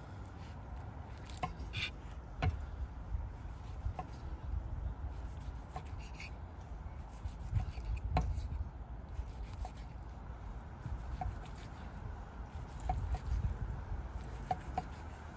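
Knife slicing through a grilled ribeye on a wooden cutting board: soft rubbing and scraping strokes, with scattered sharp knocks of the blade against the board.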